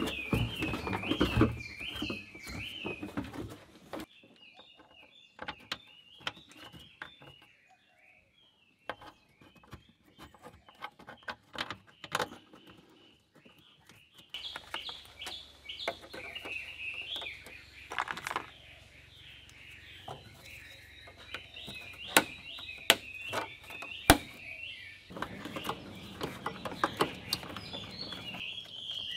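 Birds chirping and warbling, with scattered sharp clicks and knocks as a plastic windshield washer fluid reservoir is handled and pushed into place in a truck's wheel well. The birdsong drops away for several seconds in the middle and returns.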